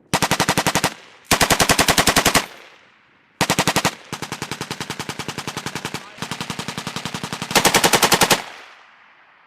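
M240B medium machine gun firing about six bursts of automatic fire in quick succession, roughly a dozen shots a second. Loud short bursts alternate with two longer, quieter bursts in the middle.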